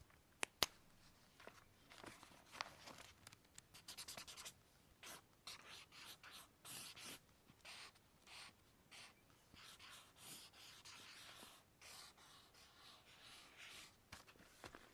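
Faint scratching of a drawing tool on paper in short, irregular strokes, with two light taps about half a second in.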